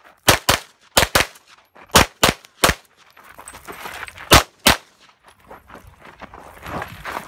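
Rapid pistol fire: nine sharp shots, mostly fired in quick pairs, with a pause of about a second and a half before the last two.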